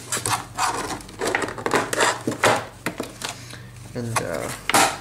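Stiff clear plastic clamshell packaging being pried and pulled open by hand: irregular crackles, clicks and snaps of the plastic.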